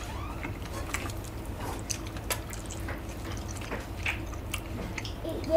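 Close-up chewing of tteokbokki rice cakes and glass noodles: many small wet clicks and squishes, mixed with chopsticks moving through the sauce in the pot, over a steady low hum.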